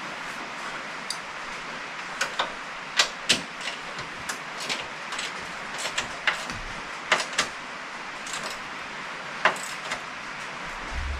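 Irregular sharp metallic clicks and clinks of hand tools and bolts being worked on a truck's fender, over a steady background hiss.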